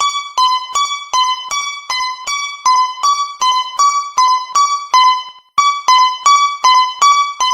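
Japanese railroad crossing alarm ringing: two bell tones close in pitch strike in alternation, about two to three strokes a second, in an even repeating pattern. It cuts out briefly about five and a half seconds in, then resumes.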